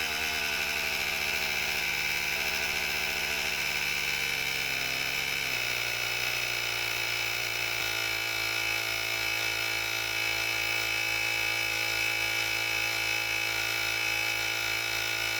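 Cordless battery-powered tire inflator's small piston compressor running steadily as it pumps up a flat car tire, a continuous whirring drone whose tone shifts a little about halfway through.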